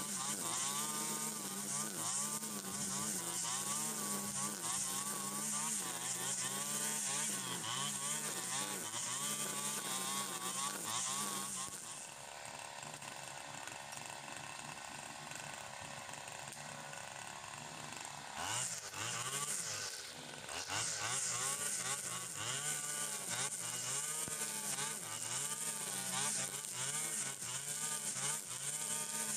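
Stihl FS 120 two-stroke brush cutter cutting tall grass, its engine speed rising and falling under load. About twelve seconds in it drops to a steady idle for about six seconds, then revs back up and resumes cutting.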